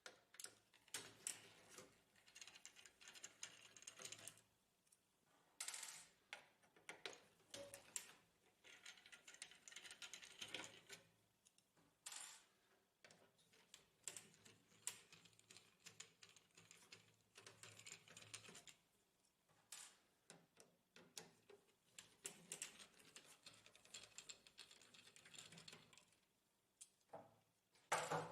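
Faint, irregular clicks and small rattles of a screwdriver backing out screws and of plastic and metal printer parts being handled, with short clusters of clicks here and there.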